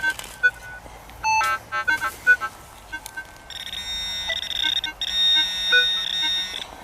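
Minelab CTX 3030 metal detector giving a few short beeps, then a steady high electronic tone held for about three seconds with a brief break partway, signalling a metal target in the hole.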